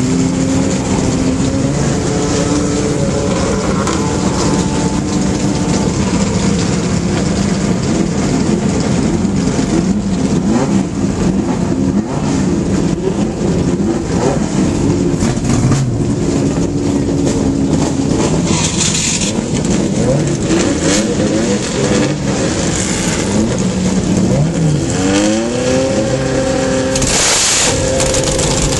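Historic racing car engines running at close range, idling with the pitch wavering as the throttle is blipped. About 25 seconds in, an engine revs up through a rising glide and then settles at a higher, steady pitch.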